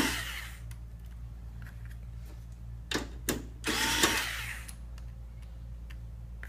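Cordless electric screwdriver backing out two screws: a short whir that ends just after the start, then a couple of clicks and a second whir of about a second.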